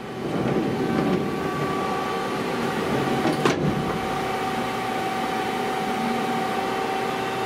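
Bridgeport Romi CNC lathe running, a steady machine hum with a few held tones. One sharp clack comes about three and a half seconds in as the control-actuated tailstock quill moves.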